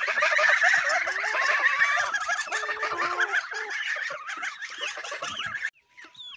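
Flock of white domestic geese calling together, many short overlapping cackles in a continuous chatter that cuts off abruptly near the end.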